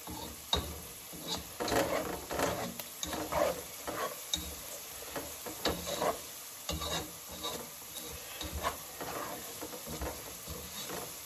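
Slotted spatula stirring and scraping chopped onion, green chilli and cashews frying in oil in a non-stick saucepan, irregular scrapes and light taps over a faint sizzle.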